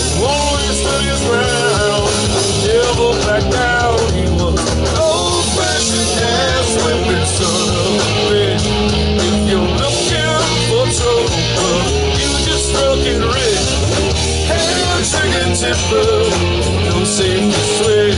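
Rock band playing live, with electric guitars, bass and drums and a man singing lead.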